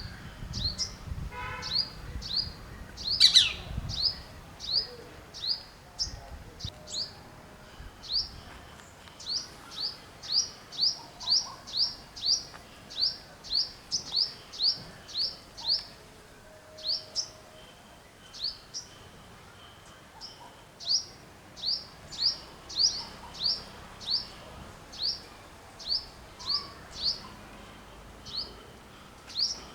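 A bird repeats short, high, down-slurred chirps, about one or two a second, with brief pauses in the series. About three seconds in there is a single sharp knock, the loudest sound.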